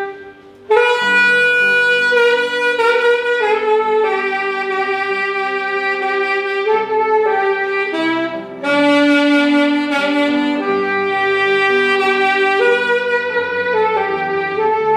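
Saxophone playing a slow melody of long held notes, with short breaks about half a second in and at about 8.5 s.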